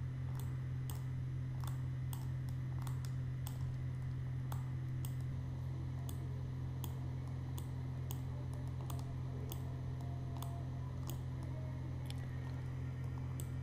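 Computer mouse clicking at irregular intervals, about one or two clicks a second, as the Spot Healing Brush is clicked and dragged over text. A steady low hum runs underneath.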